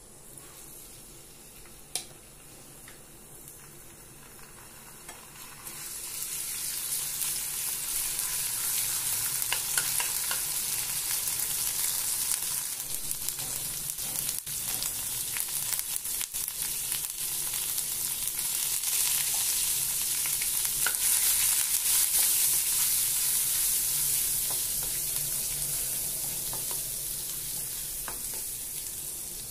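Ginger-garlic paste frying in hot oil in a nonstick kadai, with turmeric stirred in. It is quiet at first apart from a single click; about six seconds in, a steady loud sizzle takes over, with a spatula stirring and scraping through the paste.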